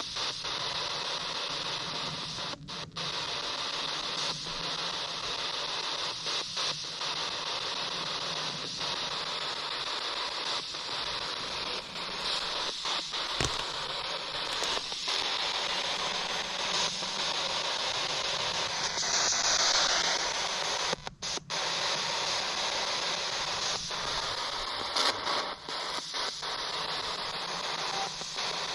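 Spirit box (radio sweep device) hissing with steady radio static, cut by several brief dropouts as it scans, with a louder patch of hiss about two-thirds of the way through.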